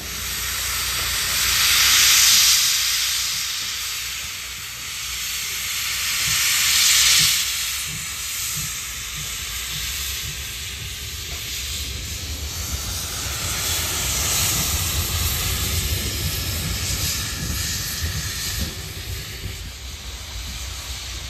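Class 86 steam tank locomotive 86 1333-3 hissing loudly as it blows steam from its cylinder drain cocks while under way. The hiss surges twice in the first seven seconds, then settles into a steadier hiss over a low rumble from the locomotive.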